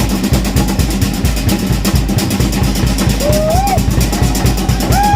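Music with fast, driving drumming. A tone slides up about three seconds in, and a long held tone comes near the end.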